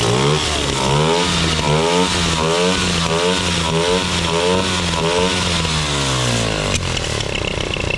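X18 pocket bike's small two-stroke engine running fitted with a new carburetor, its pitch rising and falling over and over about every three-quarters of a second as the throttle is worked, before a sudden change near the end to a steadier running sound.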